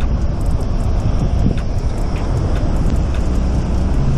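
Wind rushing over a bike-mounted camera's microphone while riding in slow city traffic, with the low rumble of nearby cars running. Faint light ticks come about twice a second, and a low steady hum starts near the end.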